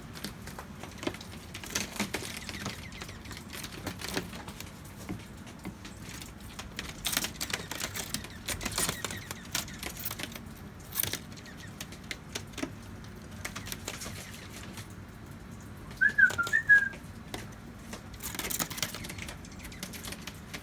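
Small birds hopping and scrabbling on the greenhouse's plastic roof panels overhead: irregular taps and scratchy clicks of their feet on the panels, with a few quick high chirps about sixteen seconds in, the loudest moment.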